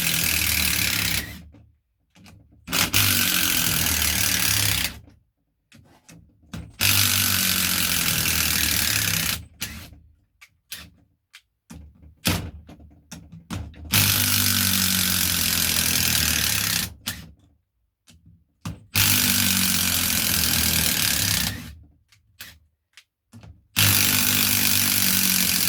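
Makita brushless cordless impact driver hammering as it backs 8 mm coach screws out of oak, in runs of about two to three seconds each. Between runs there are short pauses with small clicks as it moves from screw to screw.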